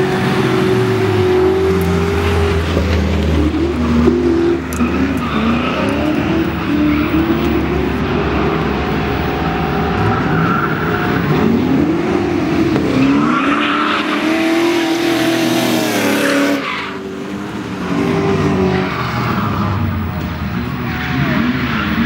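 Drift cars sliding through a corner, engines revving hard with the pitch repeatedly climbing and dropping as the throttle is worked, over squealing, spinning tyres. The sound dips briefly near the three-quarter mark as one car gives way to the next.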